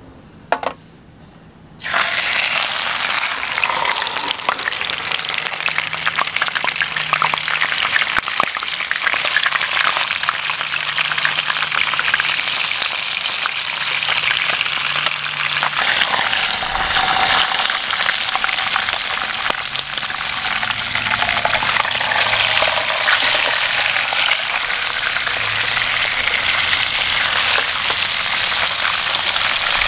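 Whole trout frying in hot oil in a frying pan on a portable camp stove: a loud, steady sizzle with fine crackling that starts suddenly about two seconds in, after a short quiet stretch with a single click. There is a dull knock about halfway through.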